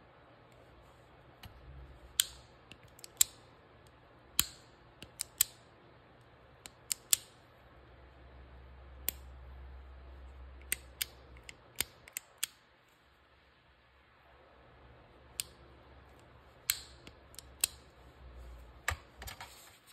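Exposed lockwork of a Rast & Gasser revolver being worked by hand: about twenty sharp metal clicks at irregular intervals as the hammer, trigger and cylinder parts move and catch.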